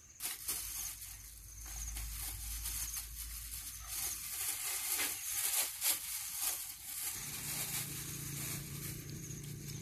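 Puppies chewing and crunching dry kibble: a dense crackle of many small clicks.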